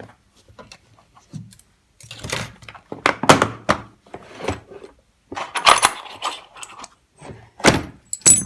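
Small metal tools and lock parts clinking and rattling in irregular bursts as they are handled, while the wrong plug follower is swapped for another.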